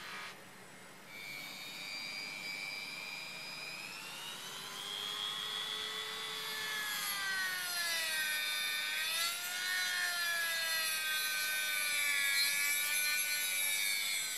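About a second of a bench grinder wheel rubbing on a small steel part, then a rotary tool with a thin cutting disc whining as it cuts a slot into a screw head. The whine's pitch wanders up and down as the disc bites.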